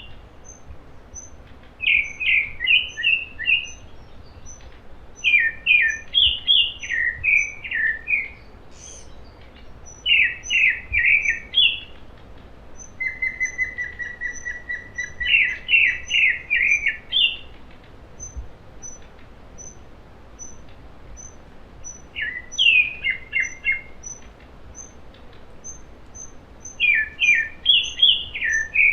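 Wild songbird singing short phrases of quick, varied notes, repeated every few seconds, with one run of rapid even notes midway. A faint high-pitched note repeats about twice a second behind the song.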